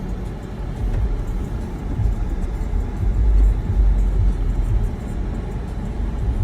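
Jeep Cherokee 4xe SUV in snow mode backing out through deep snow: a low, uneven rumble of the drivetrain and tyres working through the snow.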